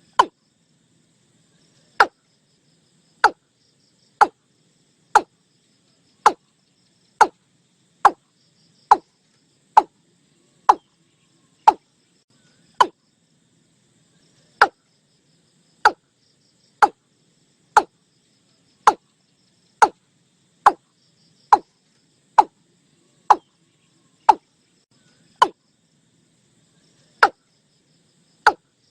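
Watercock giving a long series of short, sharp notes, each falling quickly in pitch, about one a second with a few longer pauses. Faint insects trill steadily behind it.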